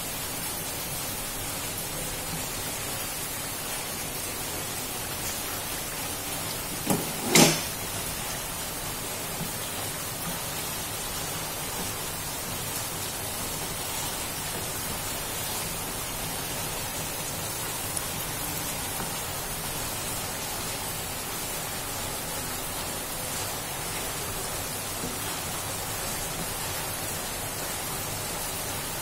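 Milkfish pieces frying in a pan of hot oil: a steady sizzling hiss, with two sharp knocks close together about seven seconds in.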